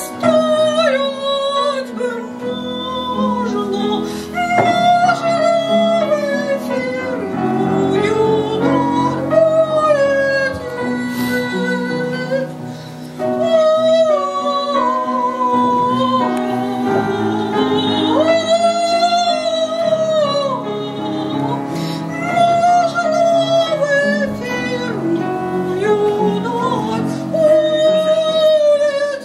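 A woman singing a Russian romance in a full classical operetta voice with a wavering vibrato, accompanied by an upright piano. She breaks off briefly about 13 seconds in, then carries on.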